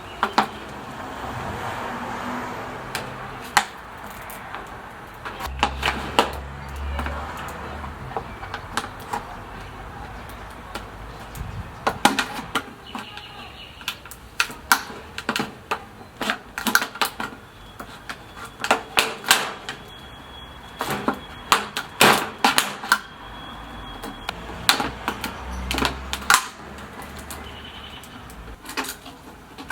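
Irregular clicks, taps and crackles of close-up hand work with plastic bottles, which keep coming at an uneven pace.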